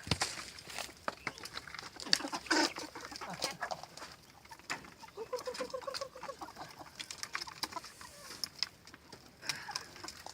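Chickens clucking, with one longer drawn-out call about five seconds in.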